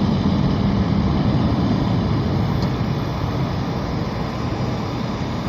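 Steady low hum and rumble of jet airliners on an airport apron, easing slightly toward the end.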